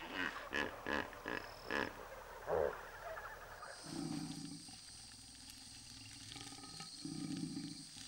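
Hippopotamus calling: a run of about six short grunting calls in the first three seconds, the last one lower and louder. Then a steady high background hum, with two low rumbles.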